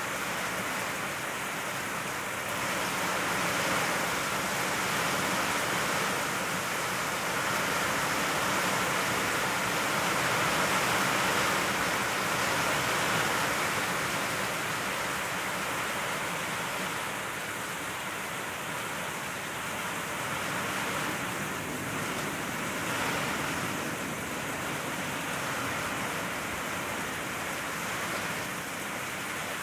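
Heavy rain pouring steadily, a dense even hiss that swells a little around the middle.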